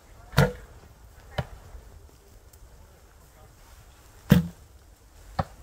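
Two shots from traditional bows, one about half a second in and one near the end: each a sharp snap of the bowstring on release, followed about a second later by a fainter knock as the arrow strikes the foam 3D target.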